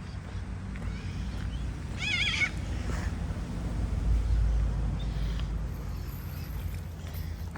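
A brief, wavering, whinny-like animal call about two seconds in, over a steady low rumble of wind or handling on the microphone.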